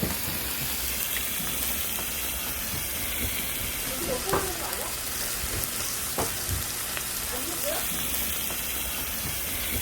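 Jeju black pork sizzling on a large wood-fired iron griddle, a steady hiss, with a brief louder sound about four seconds in.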